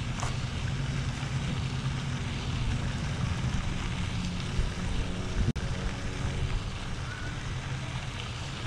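Steady wind buffeting the microphone, a low rumble, with a faint engine drone underneath for a few seconds around the middle.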